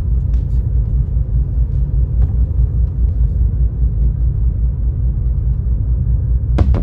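Steady low rumble of a car on the road. Music with drum hits comes in near the end.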